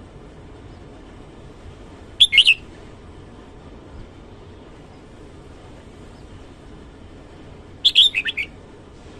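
Red-whiskered bulbul singing two short, bright phrases of a few quick notes each: one about two seconds in, and a slightly longer one near the end.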